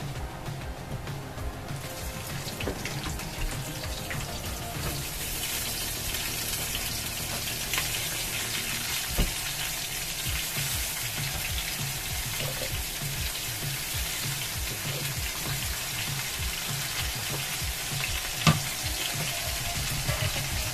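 Chicken feet sizzling and frying in hot oil in a wok as they are added by hand. The sizzle grows louder a few seconds in, with a couple of short sharp knocks.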